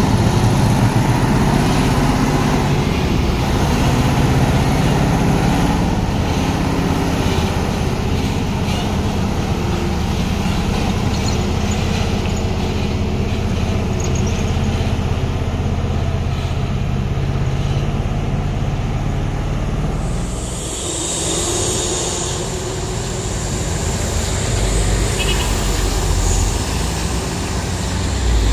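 Heavy diesel truck engines running hard under load as trucks climb the hill, one of them smoking black from the strain. A short hiss sounds about twenty seconds in.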